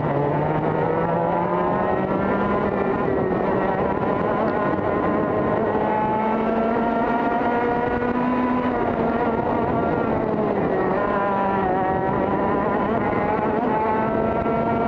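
TKM two-stroke kart engine running flat out, heard on board, its pitch climbing as the kart accelerates. The pitch drops as it slows about nine seconds in, then climbs again near the end.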